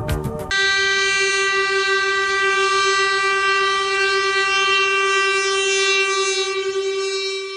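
Train horn sounding one long, loud, steady note that starts abruptly about half a second in, cutting off the music, and holds to the end.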